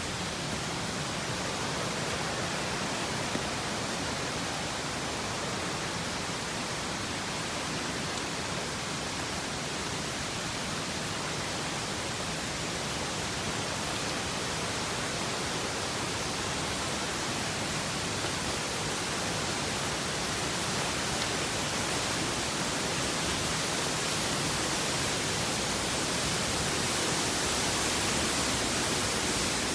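Waterfall: a steady rush of falling water, growing slightly louder near the end.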